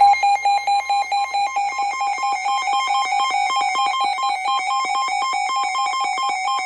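NOAA Weather Radio receiver's alert alarm sounding for a flash flood warning: a rapid train of shrill electronic beeps, about seven a second, over the broadcast's steady 1050 Hz warning alarm tone.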